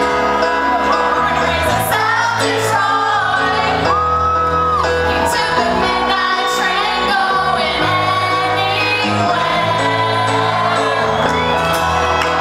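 A woman singing a pop-rock song live into a microphone with a rock band playing behind her, holding one long note about four seconds in. Shouts and whoops come from the crowd.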